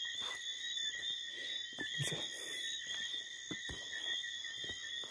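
Steady high-pitched night chorus of calling insects or frogs, several pitches held together, with scattered crunches and snaps of footsteps on dry leaves and twigs.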